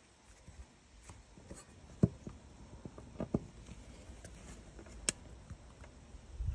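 Faint rubbing with a few short, sharp clicks and knocks as fingers ease a motorcycle's plastic side panel off its mounts. The loudest click comes about two seconds in, with another near the five-second mark.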